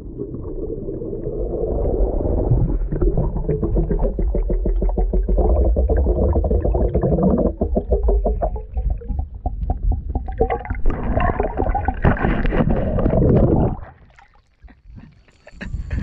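Muffled underwater sound of a camera submerged in river water: gurgling and bubbling with a constant crackle over a deep low rumble. It drops away sharply near the end as the camera comes out of the water.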